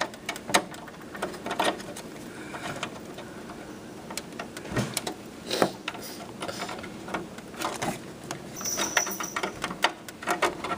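Scattered light clicks, taps and rustling as a front-panel cable and its connector are handled and pressed into place inside a desktop PC case, with a few sharper knocks.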